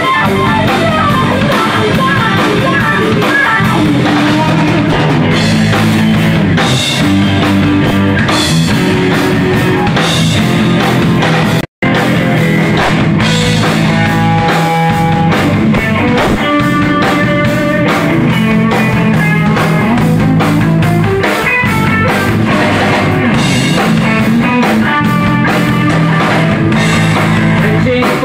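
Live rock power trio: a Stratocaster-style electric guitar to the fore over bass and a drum kit, playing loudly and without a break, except that the sound cuts out for an instant about twelve seconds in.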